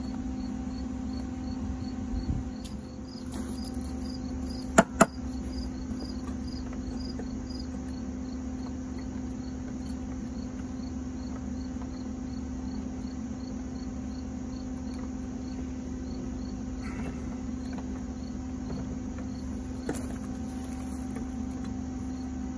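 A steady low hum throughout, with a faint high chirp pulsing about three times a second. Two sharp clicks come close together about five seconds in.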